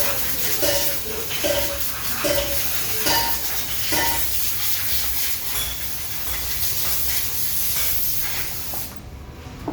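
Metal parts or tools clinking, about a clink a second for the first few seconds, over a steady hiss that stops near the end.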